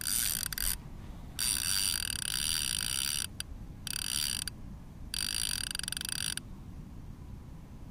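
Baitcasting reel's line-out clicker ratcheting in a steady buzz as line is pulled off the spool, the sign of a catfish taking the bait and running. It comes in four runs that start and stop sharply, the longest about two seconds, near the middle.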